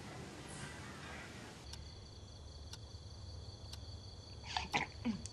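Steady high insect drone, starting about a second and a half in after a faint hiss, over a low outdoor rumble. Near the end come a couple of short bird-like chirps.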